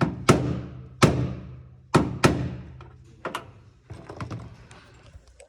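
Hammer blows on steel driving a cut-off door-handle rivet out of a van door: four sharp strikes in the first two and a half seconds, each ringing briefly, then a lighter one, and then only small taps and clicks.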